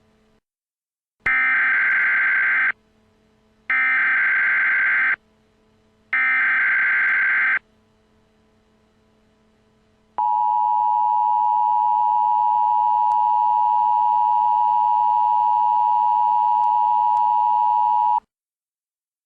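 Emergency Alert System alert tones. First come three harsh, buzzing digital SAME header bursts, each about a second and a half long with a second's gap between them. Then the EAS two-tone attention signal sounds steadily for about eight seconds and stops abruptly, announcing a civil danger warning.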